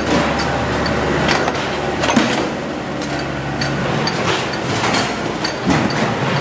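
Sheet-metal press machinery running with a steady low hum that drops about two seconds in, and a faint high tick repeating about twice a second. Several sharp metal clanks come as stainless-steel sink bowls are handled at the press.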